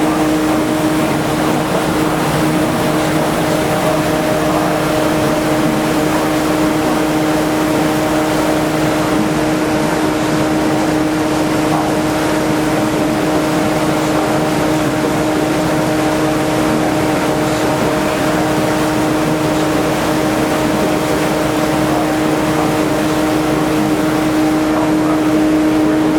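Cruise boat's engine running at a steady cruising speed: a constant, unchanging hum over a rushing noise of wind and water.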